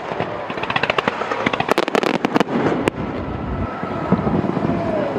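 Fireworks bursting overhead, with a rapid crackle of many sharp cracks that is densest in the first half and thins out after about three seconds, over a continuous rumble of the display.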